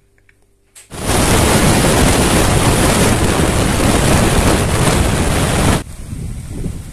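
Loud rushing wind and road noise from a car driving on a wet highway. It starts abruptly about a second in and cuts off suddenly near the end, giving way to a quieter, uneven low rumble.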